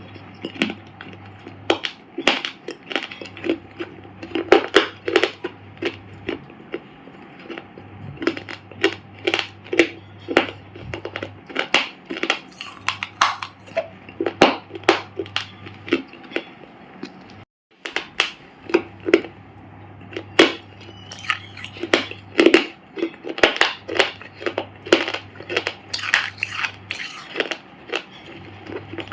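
Dry clay being crushed, an irregular rapid run of sharp crunches and crackles with a brief break about seventeen seconds in.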